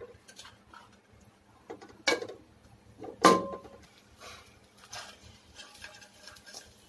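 Kitchenware knocking and scraping in a metal frying pan: fried rice stirred with a wooden spatula, and a steel plate tipping fried prawns in. Two sharp knocks, about two and three seconds in, the second and loudest a ringing metallic clink, with soft scraping between.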